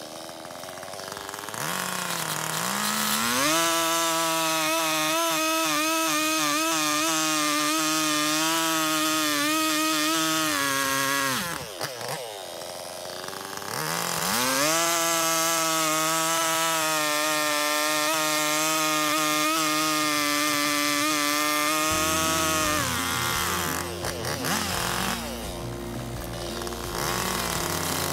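Husqvarna 395XP two-stroke chainsaw cutting through a shagbark hickory log. It revs up to full throttle and holds through two cuts of about eight seconds each, its pitch wavering under load, and drops back to idle between the cuts and again near the end.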